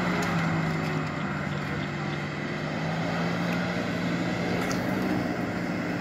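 Off-road competition 4x4's engine running steadily at a low, even pitch, dipping slightly about a second in.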